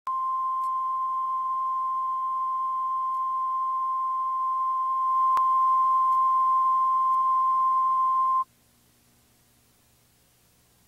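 Steady 1 kHz line-up tone accompanying SMPTE colour bars at the head of a videotape, stepping slightly louder about five seconds in with a brief click. It cuts off suddenly about eight seconds in, leaving near silence.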